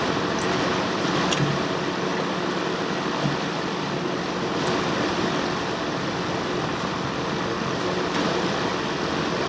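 Steady mechanical running noise: an even whoosh with a faint low hum underneath, unchanging throughout.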